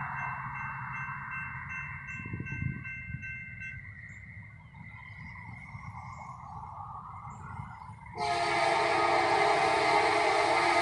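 Approaching train's locomotive air horn sounding: a loud chord of several held tones that starts suddenly about eight seconds in. Before it, fainter steady tones fade out over a low rumble.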